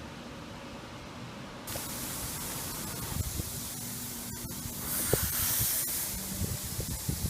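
A steady hiss that jumps louder about two seconds in, with a few knocks, and a stronger, higher spraying hiss lasting about a second past the middle.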